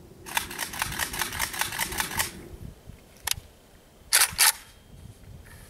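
A rapid run of light metallic clicks for about two seconds, one more click, then two loud sharp metal clacks a third of a second apart: a WASR-10 AK-pattern rifle's charging handle pulled back and let slam forward, chambering a round after a reload.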